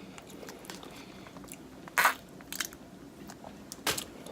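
Close-up eating sounds: biting and chewing food, with a few sharp crunches, the loudest about two seconds in and another near the end.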